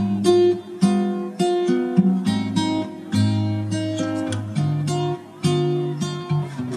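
Background music: an acoustic guitar picking a steady pattern of notes, about two a second.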